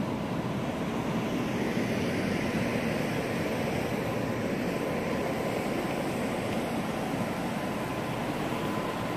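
Steady room tone of a large, empty airport terminal hall: an even rushing hum of the building's air handling, with a faint thin steady tone above it.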